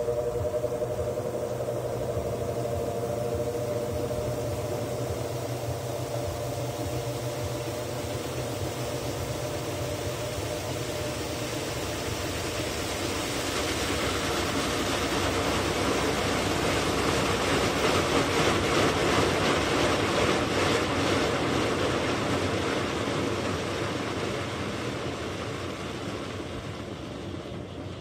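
GE 15 kg top-load washing machine in its final spin cycle: a steady motor whine and drum noise, swelling to its loudest about two thirds of the way through and easing off near the end.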